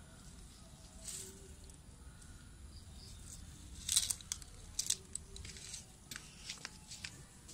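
Faint scattered rustles and scratchy clicks over a low steady hum, the loudest cluster about four seconds in.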